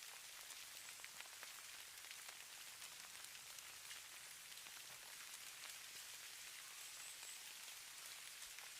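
Falling snow: a faint, steady hiss of many tiny ticks as flakes land on surfaces.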